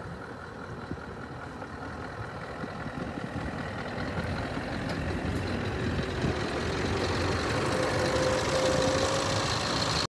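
Scania R620's V8 diesel engine idling steadily, growing louder toward the end.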